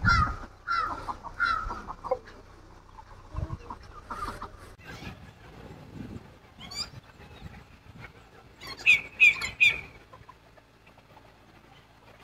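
Fowl calling: a few falling clucking calls early, then three quick, sharp, high squawks about three-quarters of the way through.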